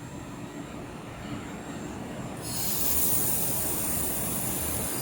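Handheld laser welder, air-cooled, over a low machine hum; about halfway in it starts a weld on aluminium with a sudden steady hiss that keeps going.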